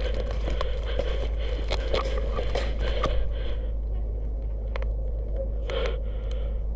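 Scraping and rustling of movement, with scattered clicks and crunches over a steady low rumble; a sharp, loud knock right at the end.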